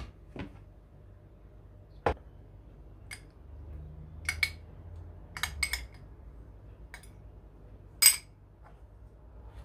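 Metal spoon and fork clinking against a small glass bowl and the countertop: a scattering of sharp clinks, several close together in the middle, the loudest just after eight seconds.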